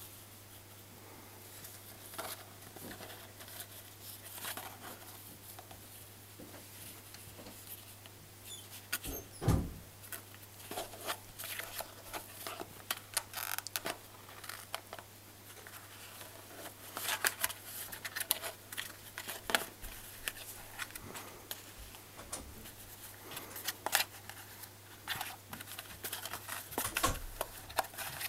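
Kitten clawing, biting and kicking at a cardboard paper towel tube: irregular scratching and scraping of claws and teeth on the cardboard, with a louder thump about nine seconds in.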